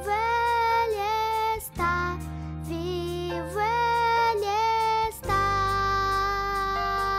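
A girl's solo voice singing a worship song over instrumental accompaniment, in two short phrases and then a long held note starting about five seconds in.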